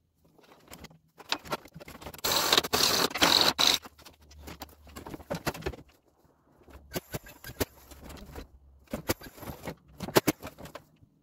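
Work noise from fitting fibre-cement shake siding against a wall: a loud rushing hiss for about a second and a half early on, then scattered sharp clicks and knocks from the panel and tools being handled.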